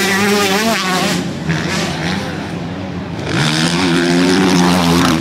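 Motocross bikes' engines running hard on the track, revving and wavering in pitch early on. From about three seconds in, one engine note comes up loud and holds steady.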